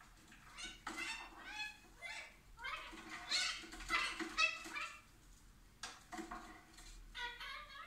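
Blue Indian ring-necked parakeet chattering in runs of garbled, rising-and-falling, talk-like sounds as it tries to imitate speech, with a short break about five seconds in and a last run near the end.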